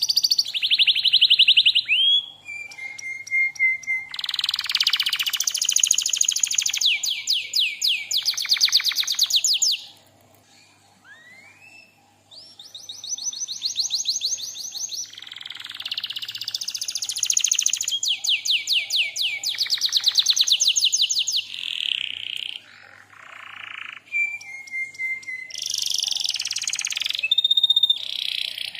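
Domestic canary singing: phrases of rapid rolling trills, fast repeated notes, with short sliding whistles between them and a brief pause about ten seconds in.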